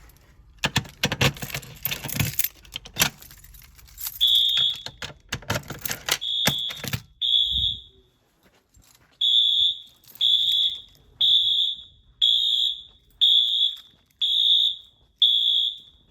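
About four seconds of clattering knocks, then Wheelock MT fire alarm horns sounding short, high beeps, irregular at first and then steady at about one a second, as the horns sound during a Simplex 4020 panel's audible walk test.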